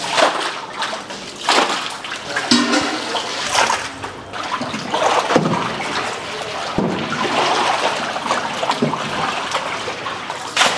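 Water splashing and sloshing as a large batch of mutton pieces is washed in a big aluminium vessel, lifted and kneaded by hand, then churned with a long wooden pole. The splashes come again and again, about every second or two.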